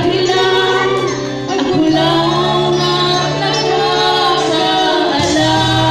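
Women singing into handheld microphones over a music backing track with a steady bass line.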